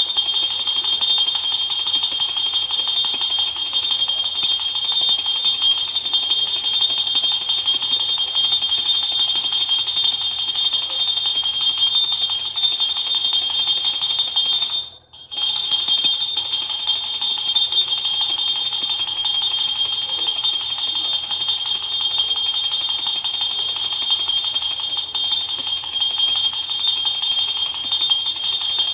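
Small puja hand bell rung without a stop for aarti, a dense, steady metallic ringing, with a brief break about halfway through.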